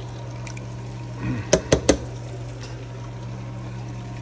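Chicken wings bubbling in hot canola oil in a stainless steel pot, with three quick clinks of metal tongs against the pot about a second and a half in as the wings are lifted out.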